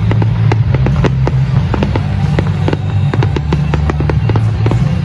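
Aerial fireworks bursting and crackling, many sharp reports a second in irregular succession, over music with a deep steady bass.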